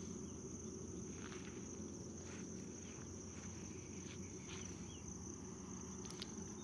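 Quiet workshop background: a steady high-pitched whine over a low hum, with a few faint clicks and rubs from hands greasing the inside of a truck brake booster's metal housing.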